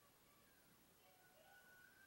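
Near silence: room tone, with very faint thin cries appearing about halfway through.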